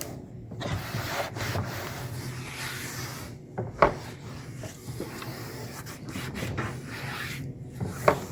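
Hands rubbing and pressing a rack's adhesive-backed rails down onto a plastic roto-molded cooler lid, a steady rubbing scrape, with two short sharp louder sounds, one about halfway through and one near the end.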